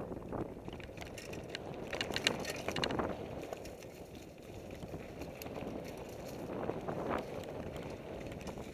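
Fuji Thrill mountain bike descending dirt singletrack at speed: tyres rolling over the trail with rattling and clicking as the bike goes over bumps, busiest about two to three seconds in and again around seven seconds.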